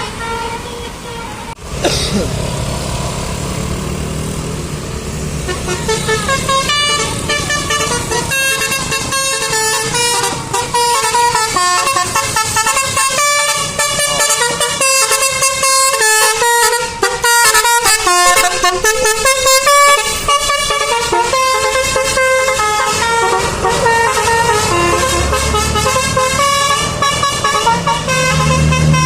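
Indonesian bus 'telolet' air horn playing its tune, many short notes stepping quickly up and down in pitch, from about six seconds in until just before the end.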